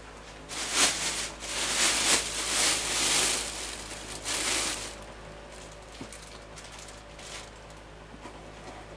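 Plastic packing bag rustling and crinkling as it is pulled open, in a run of bursts over the first five seconds, followed by faint handling sounds.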